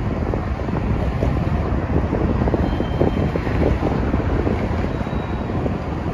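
Freight train cars rolling past: a steady rumble of steel wheels on rail, with frequent short clicks and clanks through it.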